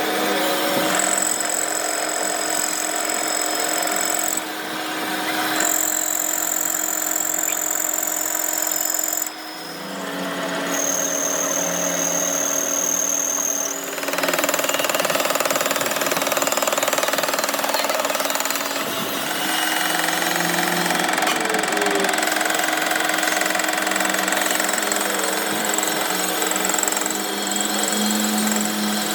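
Power tools running steadily through a string of short shots. A high, thin whine comes and goes in the first half, and the sound changes abruptly every few seconds.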